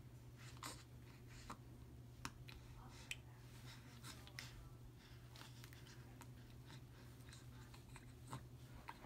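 Near silence: quiet room tone with a steady low hum and faint, scattered small clicks.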